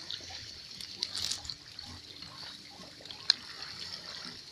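Someone wading through swamp water, with splashing and trickling around the legs, a louder burst of splashing about a second in, and a single sharp click a little after three seconds.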